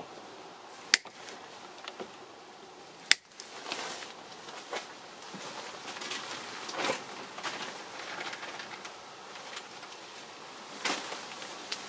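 Two sharp snips, about a second in and again about three seconds in, as the tails of two nylon cable ties are cut off, followed by softer handling rustles.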